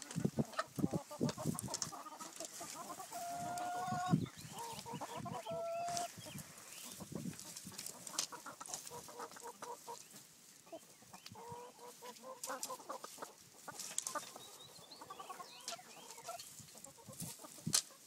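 A flock of hens clucking and squawking, many short calls overlapping, with two longer drawn-out calls about three to four seconds and six seconds in.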